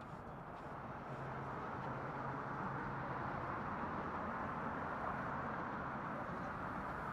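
Steady street traffic noise, growing louder about a second in and holding.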